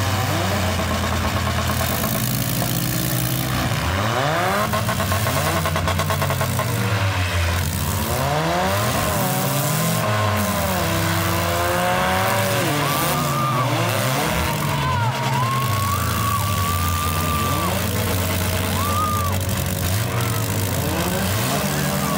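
Several demolition-derby cars' engines revving hard at once, their pitches rising and falling over one another in a loud, continuous din.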